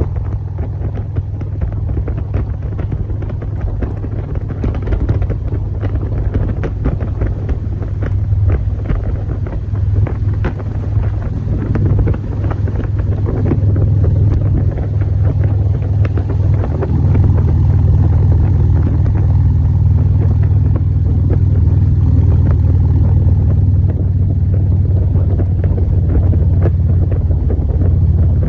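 An engine running at a steady speed, getting louder partway through, with wind buffeting the microphone.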